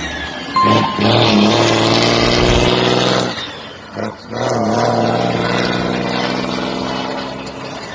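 Car engine with a straight-through exhaust (diretão) being revved and held at high revs. It drops off briefly about three and a half seconds in, then picks back up and holds steady.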